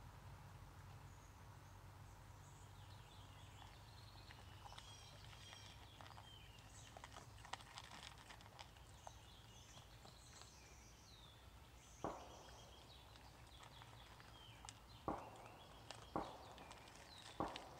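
Quiet sounds of a raccoon feeding from a plastic tub on a wooden deck: a handful of sharp knocks in the second half, over faint birdsong.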